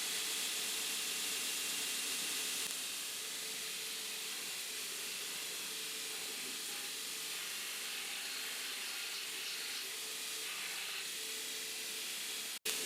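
Belt sander running steadily on a resin micarta knife handle: a continuous hiss with a faint steady hum. It eases slightly about three seconds in and cuts out for an instant near the end.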